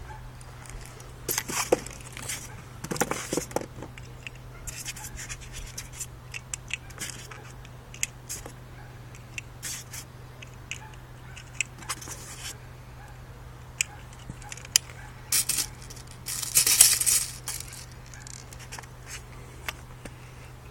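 Handling of a Dan Wesson 4.5mm BB revolver: scattered short metallic clicks and scrapes over a low steady hum, with a longer burst of noise about seventeen seconds in.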